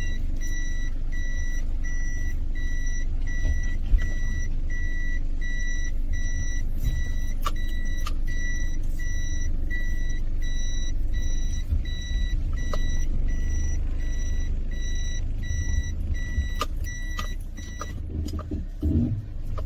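Car engine running with a low rumble while the car's electronic warning beeper sounds steadily, about two beeps a second, then stops near the end.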